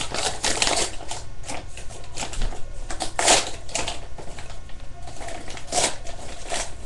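Paper rustling and crinkling in irregular crackles as a letter and its envelope are handled, with a louder crinkle about three seconds in and another near the end.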